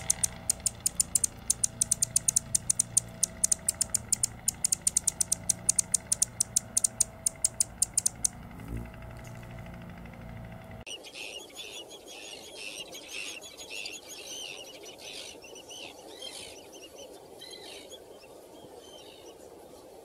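Male Anna's hummingbird giving sharp, high chip calls in a rapid series, about six a second, which stop after about eight seconds. About eleven seconds in, the sound changes to a mix of quieter bird chirps and song over outdoor background noise.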